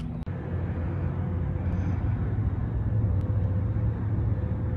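A steady low rumble with a faint, even hum above it, like traffic or a running engine heard outdoors.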